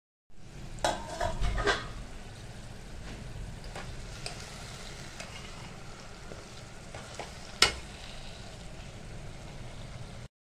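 Minced meat frying in oil in an aluminium pot, sizzling steadily, while a metal slotted spoon stirs it and scrapes the pot. There is a burst of scraping about a second in and a single sharp clink of spoon on pot later on.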